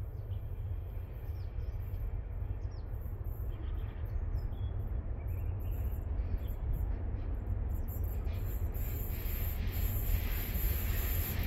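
Freight train approaching from a distance on a curved line: a steady low rumble, with wheel and rail noise growing louder over the last few seconds. A few short bird chirps are heard in the middle.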